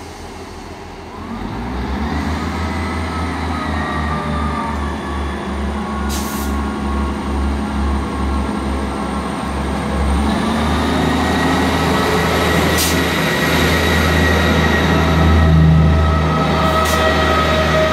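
ScotRail Class 158 diesel multiple unit pulling away from the platform: its underfloor diesel engines rev up with a deep pulsing rumble and a rising whine, getting louder as it accelerates. The engine note steps up about ten seconds in, with a few sharp clicks along the way.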